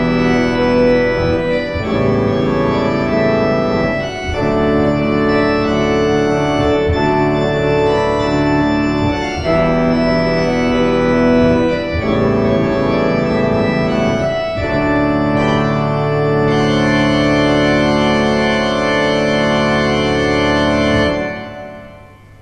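Church organ playing sustained chords with no singing, the chords changing every couple of seconds, ending on a long held chord that stops about 21 seconds in and dies away briefly.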